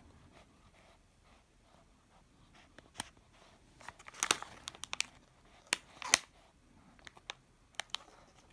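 Clear plastic wrapping on a pastry crinkling as a hand grips and lifts it, a run of sharp crackles between about three and seven seconds in.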